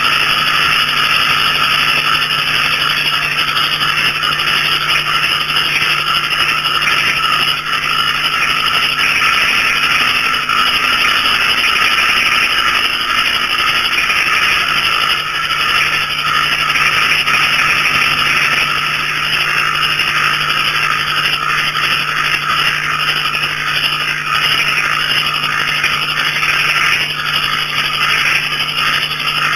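Dense night chorus of small frogs, banded bullfrogs among them, calling together with crickets. It is a loud, steady, rattling trill that never pauses.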